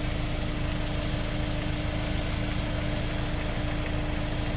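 Honda S2000's F22C four-cylinder engine idling steadily, just restarted after a timing chain service.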